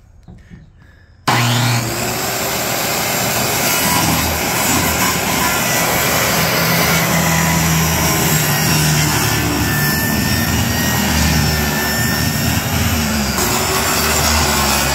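Circular saw starting up about a second in and cutting through a plywood sheet, running loud and steady as the blade rips along the board.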